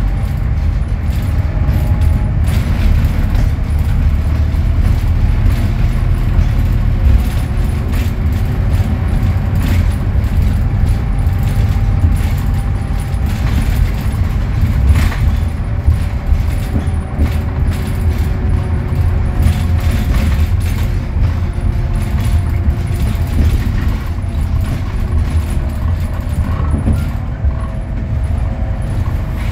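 Scania DC09 five-cylinder diesel of a Scania K320UA articulated city bus, heard on board while the bus is driven. It makes a steady low drone with faint whining tones that slowly rise and fall with speed, and occasional clicks and rattles.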